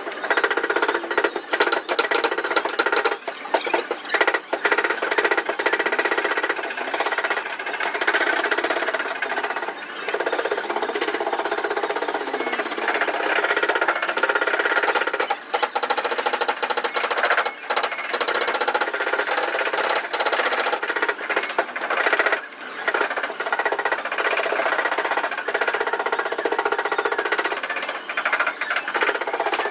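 A power tool hammering rapidly and continuously, with a few brief pauses.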